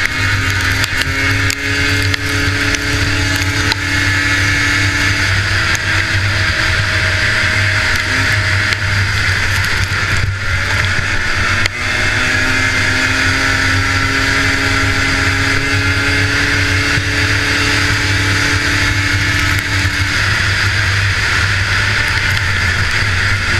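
Liquid-cooled 440 class racing snowmobile's two-stroke engine running hard, loud and steady over a rushing hiss. Its pitch climbs slowly, drops briefly about ten seconds in as the throttle comes off, then climbs again.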